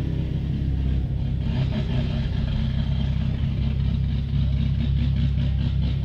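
Car engine idling steadily, heard from inside the cabin as a low, even hum.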